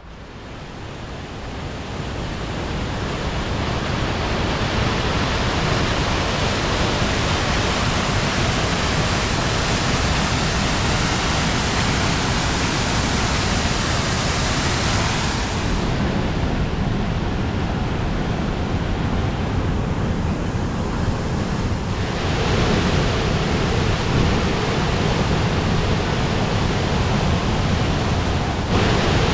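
Steady rushing roar of a waterfall, fading in over the first few seconds and changing in tone twice, about halfway through and again a few seconds later.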